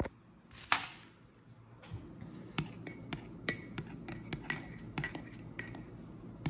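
Metal teaspoon stirring a cappuccino, clinking many times against the side of a ceramic mug from about two and a half seconds in. A brief scrape comes just before a second in.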